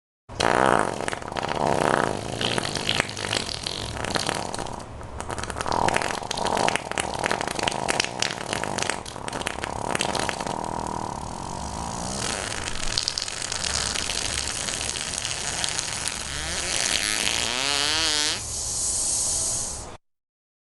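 A long, unbroken run of comic fart sound effects. It ends in a squeaky fart whose pitch quavers up and down near the end.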